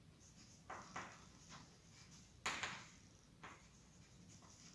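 Chalk writing on a blackboard: a handful of faint, short scratchy strokes, the loudest about two and a half seconds in.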